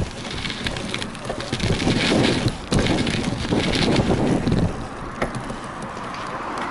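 Wheels rolling fast over an asphalt pump track, a steady rumble with wind buffeting the action-camera microphone, and a few sharp knocks and rattles from the ride.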